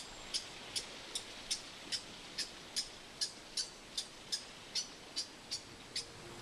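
A small mustelid giving a steady series of sharp, high chirps, about two and a half a second: an agitated call from an animal unhappy at an intruder in its feeding ground.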